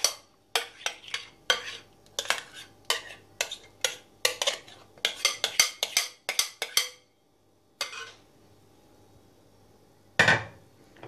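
A metal spoon scraping and clinking against a glass mixing bowl as thick cream is scraped out of it, in a quick run of sharp clinks for about seven seconds. After a near-quiet pause, a louder knock comes near the end as the spoon goes into the cream in the glass dish.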